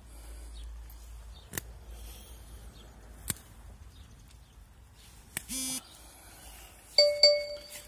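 Parsley stalks being picked by hand, with a couple of sharp snaps. Near the end, a short, loud animal call in two quick pitched notes is the loudest sound.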